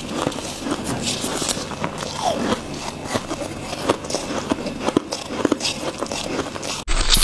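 Mouth biting and chewing freezer frost ice: repeated crisp crunches and crackles. A short gap near the end is followed by louder crunching.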